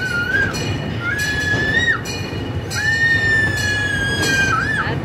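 Three long, high-pitched screams, each held steady and wavering at its end, from riders inside a corrugated-metal tunnel. Under them runs the rumble of a small electric zoo train with occasional clicks from the track.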